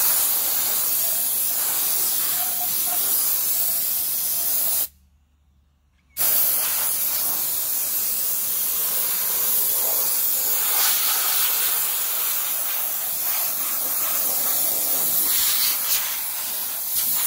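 Compressed-air soda blaster spraying bicarb soda, a loud steady hiss that cuts off for about a second around five seconds in and then starts again.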